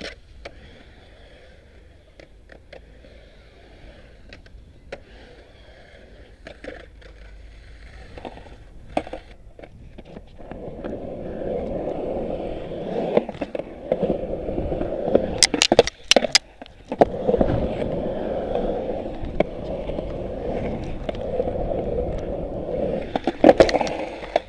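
Skateboard wheels rolling on a smooth concrete bowl: faint rolling with scattered clacks at first, then a loud, continuous rolling rumble from about ten seconds in as the board rides close to the microphone. A quick run of sharp board clacks comes midway through the loud part, and more come near the end.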